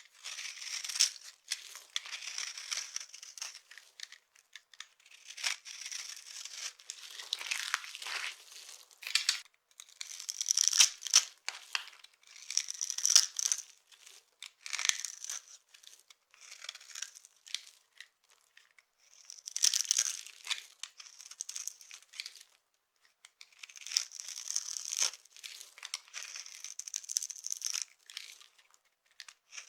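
Dry soap being crushed and crumbled: crisp crunching and crackling that comes in bursts of a second or two, with short pauses between them.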